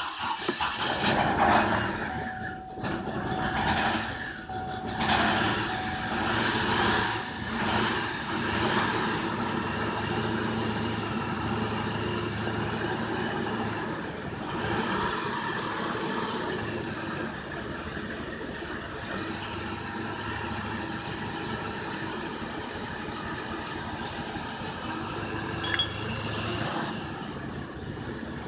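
Chevy Colorado engine idling roughly: the sound swells and dips unevenly several times in the first nine seconds or so, then runs steadier. The rough idle came on suddenly in a truck that had been running fine.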